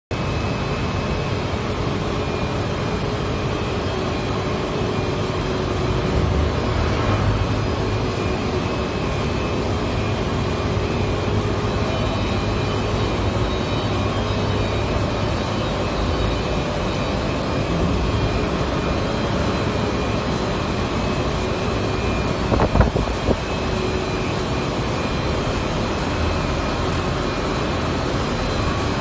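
WSFM-series extrusion laminating machine running, with paperboard web feeding through its rollers: a steady mechanical drone with a few steady tones. A short cluster of sharp knocks comes about three-quarters of the way through.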